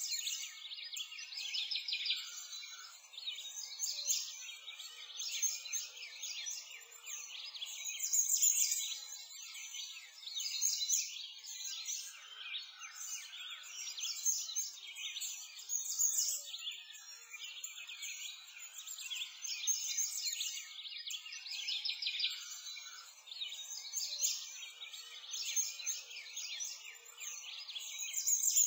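A dense chorus of small songbirds chirping and trilling: a constant stream of high, quick calls with nothing deep underneath.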